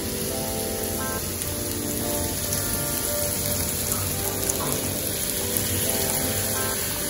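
Sautéed onions and tomatoes sizzling steadily in a frying pan as coconut milk is poured in over them. Soft background music plays underneath.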